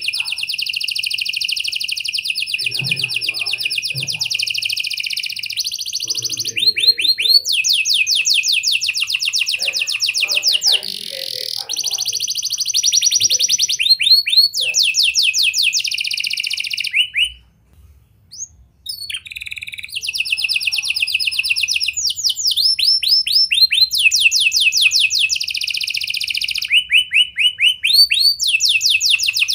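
Red-factor domestic canary singing a long, vigorous song of fast trills and rolling runs of rapidly repeated notes, switching to a new phrase every second or two. There is one brief pause a little past the middle.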